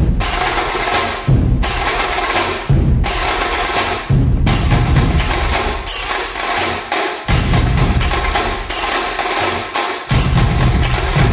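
Dhol-tasha ensemble drumming: heavy low beats of large dhol barrel drums under rapid, crisp tasha strokes, in a loud driving rhythm broken by short pauses between phrases.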